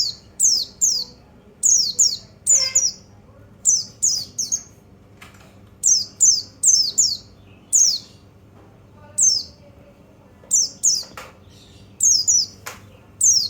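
White-eye (pleci) calling: short, high, downward-sweeping notes, mostly in quick pairs, repeated about once a second, with a few faint clicks in between. It is a wild white-eye call used as a stimulus to set kept pleci singing.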